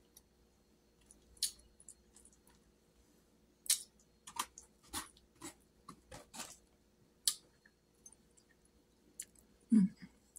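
Close-miked eating sounds: a metal fork clicking and scraping on a foam takeout container, with chewing and mouth clicks, as separate sharp ticks spread over several seconds. Near the end there is a short hummed voice sound over a faint steady hum.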